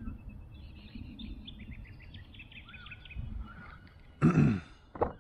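Birds chirping and calling in quick short notes over a low, even rumble. About four seconds in, a brief, loud sound with a falling pitch cuts in.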